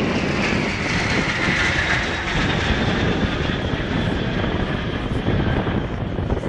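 Formation of Aero L-39 Albatross jet trainers, each with an Ivchenko AI-25TL turbofan, flying past overhead: a steady jet rumble with a high whine that swells about a second or two in and then eases off.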